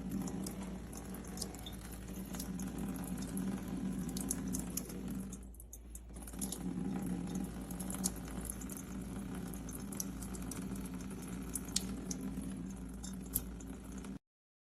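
Water running and splashing steadily, with scattered small crackling clicks; it dips briefly about five and a half seconds in and cuts off abruptly near the end.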